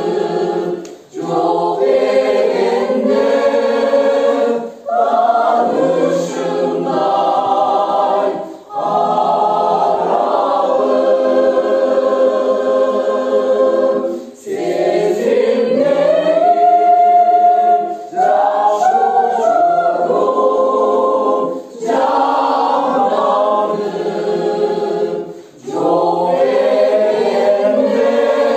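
Mixed choir of women's and men's voices singing, in phrases broken by short pauses every few seconds.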